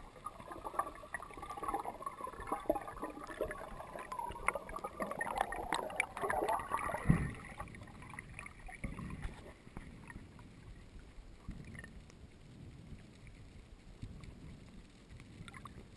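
Water noise heard through a GoPro's sealed underwater housing during a freediver's ascent: crackling bubbles and rushing water with many small clicks. About seven seconds in there is a loud swish as the camera breaks the surface, followed by quieter, muffled water sloshing.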